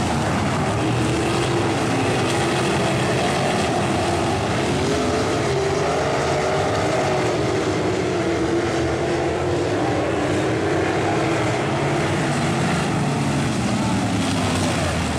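A pack of non-wing sprint cars' V8 engines running at racing speed, their pitch weaving up and down as the drivers get off and back on the throttle through the turns.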